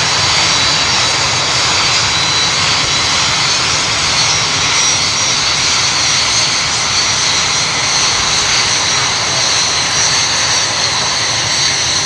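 Red Arrows' BAE Hawk jet aircraft running, a loud, steady engine noise with a high whine held over it.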